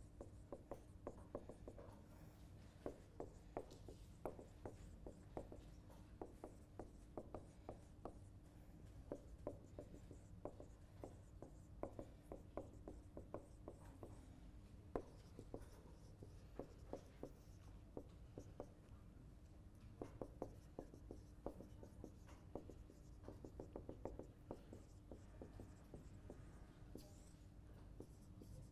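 Dry-erase marker writing on a whiteboard: a long run of faint, quick taps and short strokes as figures are written, over a steady low hum.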